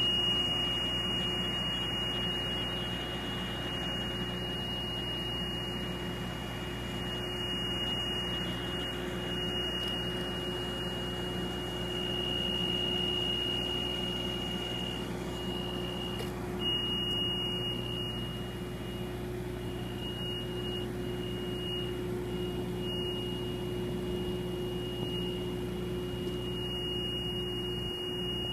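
An engine running steadily, with a thin, high, steady whine held over it.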